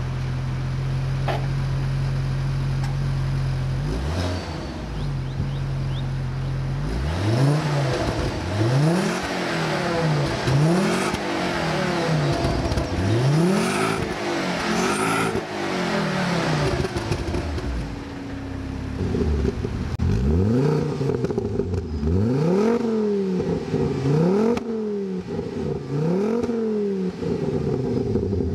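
Ford Focus RS Mk II's turbocharged 2.5-litre five-cylinder idling, then blipped in a series of quick free revs that rise and fall, heard through the stock exhaust. Near the last third the sound changes to the same revs through a Milltek sport exhaust with a 200-cell sport catalyst, resonated.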